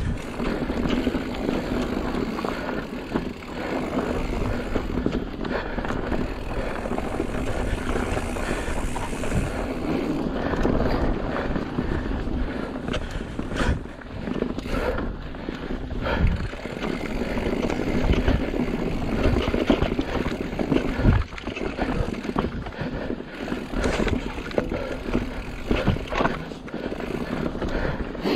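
Mountain bike riding down a dirt trail: a steady rush of tyres on dirt and rushing air, with the bike rattling and a few sharp knocks in the middle.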